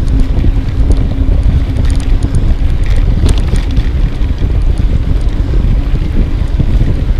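Heavy wind buffeting the microphone of a camera on a moving bicycle: a loud, gusty low rumble with a few faint clicks and knocks. A faint steady hum fades out about two and a half seconds in.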